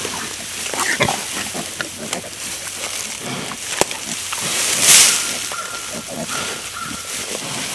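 Dry straw rustling and crackling as armfuls are carried in and dropped, with a louder rush about five seconds in, mixed with grunts from a sow nosing through the bedding.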